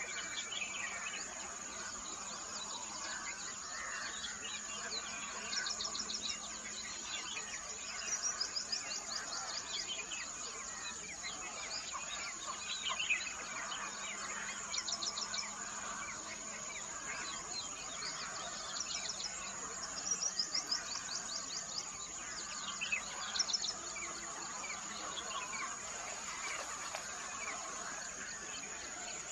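Several birds singing and calling over a steady high-pitched insect drone, with short rapid trills every few seconds.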